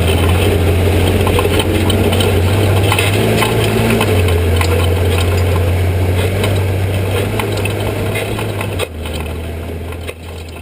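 Ultra4 race car's engine running steadily at idle, with rattling clicks over it. The note lifts briefly about three to four seconds in, and the sound drops suddenly near the end and begins to fade.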